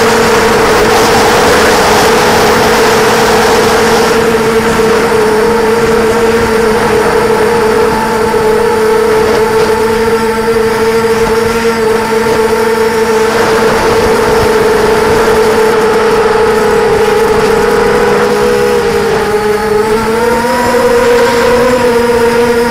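FPV quadcopter's electric motors and propellers, recorded from its own onboard camera, giving a loud steady whining hum with an airy rush. Late on the pitch sags briefly, then climbs as the quad is throttled up.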